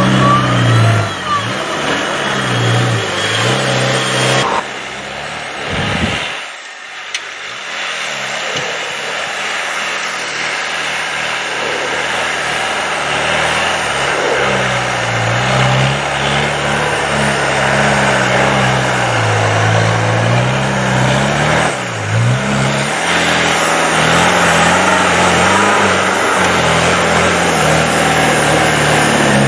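Land Rover Defender 90 engine revving up and falling back again and again as the truck works through deep snow, with a brief dip about six seconds in.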